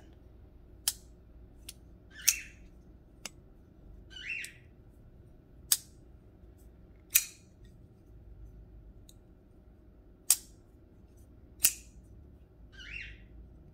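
Titanium-handled folding knife being flipped open and snapped shut over and over: six sharp clicks in three pairs, about a second and a half apart within each pair, with a few fainter ticks in between.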